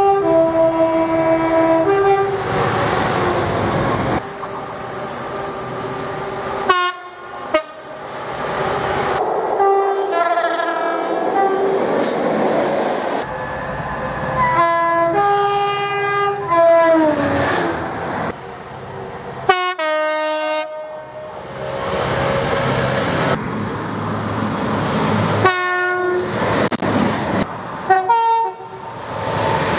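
A string of short clips of train horns, each a chord of several steady notes, joined with abrupt cuts, with the rumble and clatter of the trains underneath. One horn sound slides down in pitch about two-thirds of the way through.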